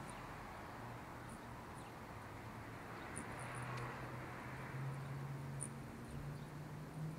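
Hummingbirds giving scattered short, faint, high-pitched chip notes, over a low steady hum that gets louder and rises a little in pitch from about halfway through.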